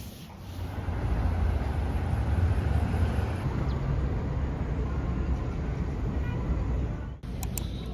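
A steady low rumble with a noisy hiss over it, building up in the first second and cutting off suddenly about seven seconds in.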